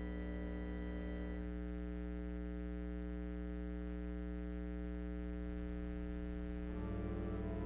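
Offertory music on a keyboard: a chord held on without fading, some upper notes dropping away about a second and a half in, and new notes coming in near the end.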